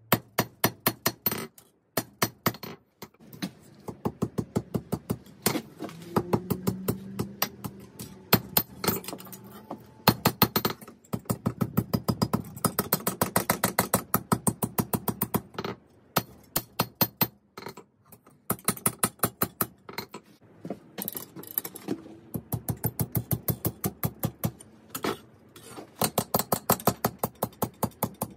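Hammer blows on steel at the anvil, forging a 5160 spring-steel blade: fast runs of ringing metallic strikes, about five a second, broken by short pauses.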